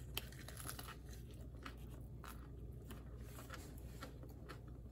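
Faint crunching and chewing from biting into a wrap of fried chicken and bacon, a scatter of short crunches.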